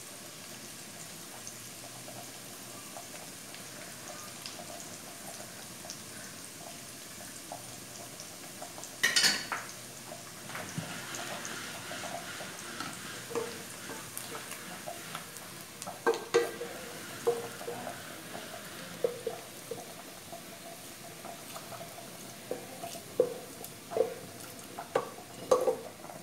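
Raw rice frying in lard in an aluminium pot, a low steady sizzle, stirred with a wooden spoon. A loud clatter comes about nine seconds in. In the second half the spoon knocks against the pot's sides again and again.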